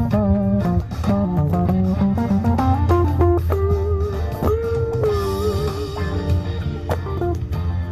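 Background music: an electric guitar playing a lead melody over bass, with long, slightly wavering held notes in the middle.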